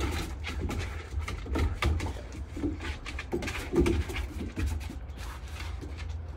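Two Great Dane puppies playing rough: irregular scuffling, with a few short growls about halfway through.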